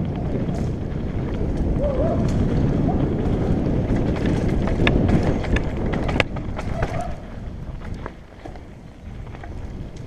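Mountain bike riding fast down a dry dirt trail, heard from a camera mounted on the bike: tyres on loose dirt and wind on the microphone, with the bike rattling and knocking over bumps. A sharp knock about six seconds in, after which the noise gets quieter.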